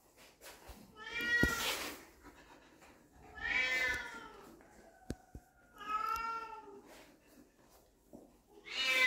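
Young puppy whining: four high, drawn-out cries about a second each, coming roughly every two and a half seconds, the last near the end.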